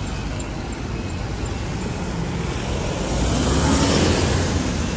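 Street traffic: engines and tyres rumbling, with one vehicle passing close and loudest about three to four seconds in.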